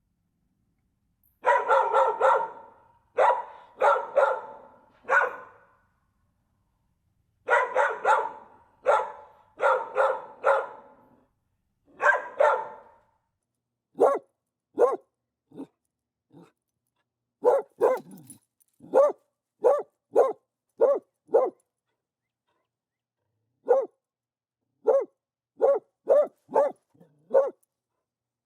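Dogs barking. First come fuller barks in bunches with short ringing tails. From about halfway they give way to short, sharp single barks, one every second or less, with pauses between runs.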